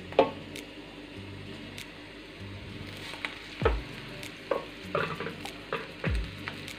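Oil sizzling in a kadai as cooked rice is added to frying vegetables and stirred, with a loud knock near the start and further spatula knocks and scrapes against the pan.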